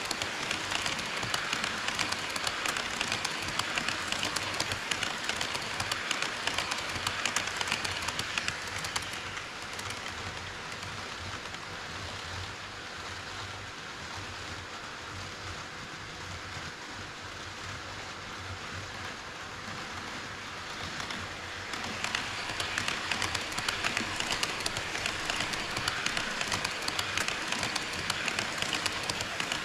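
HO-scale model train running on KATO Unitrack: a dense, rapid clatter of metal wheels over rail and track joints, smoother and quieter for several seconds in the middle before the clatter picks up again.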